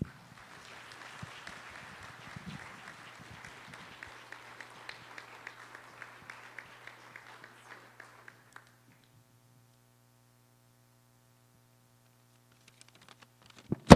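Audience applauding for about eight seconds, then dying away, over a steady low electrical hum. Near the end, a few soft knocks and one loud thump as the lectern microphone is handled.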